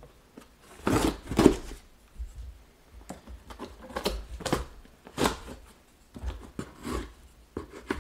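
Small pocket knife blade slitting the packing tape along a cardboard box's seam: a string of short, irregular scratchy rasps and taps against the cardboard.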